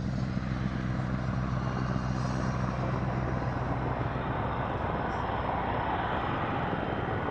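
Aircraft engine droning steadily, a low hum with a rushing noise over it.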